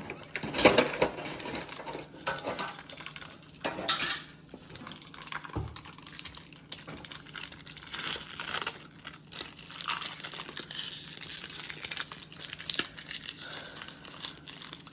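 Foil Pokémon booster pack wrappers crinkling and tearing as packs are opened by hand, in irregular bursts.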